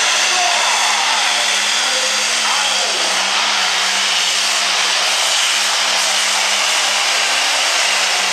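Heavy super stock pulling tractor's turbocharged diesel engine running flat out under load as it drags the sled. The sound is steady and loud, with a high whine riding over it.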